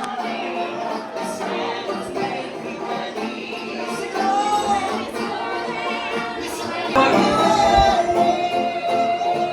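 Live music with singing voices; about seven seconds in, it gets louder and a voice holds one long note.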